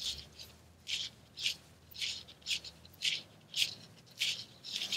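Fishing line, braid and lead core, rubbing between fingers as the wraps of a uni knot are made: short faint swishes about twice a second.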